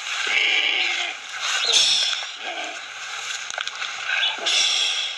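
Three loud, shrill animal calls, one shortly after the start, one about two seconds in and one near the end, with lower wavering cries between them.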